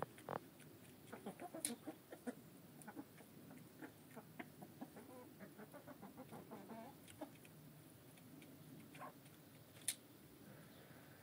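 Hens quietly clucking while they peck feed from a hanging feeder's pan, with many short pecking clicks. Two sharper clicks stand out, one about two seconds in and one near the end.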